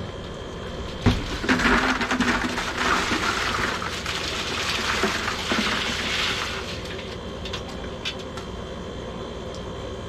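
Freshly boiled crawfish poured out of a perforated aluminum boil basket into a cooler. A sharp knock about a second in is followed by a rattling, clattering rush of shells for about five seconds, which fades, then a few light knocks.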